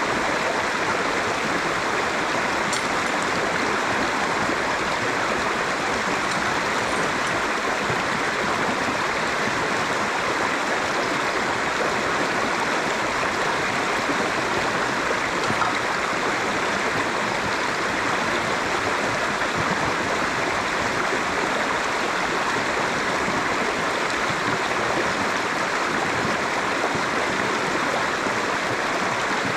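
Steady rush of a flowing river.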